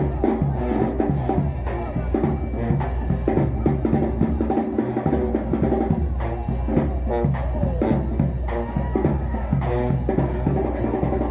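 New Orleans brass band playing a second-line groove: sousaphone, trombones and trumpets over a steady bass drum and snare beat.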